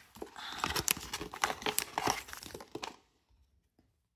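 Packaging crinkling and crackling in the hands as a collector card is taken out of a blind box, a dense run of sharp crackles that stops about three seconds in.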